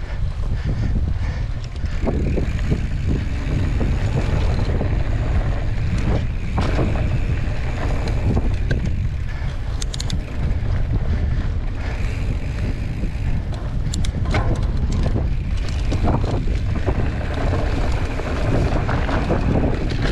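Wind buffeting the microphone of a camera riding along on a cross-country mountain bike, over a steady low rumble from the ride, with scattered clicks and knocks from the bike.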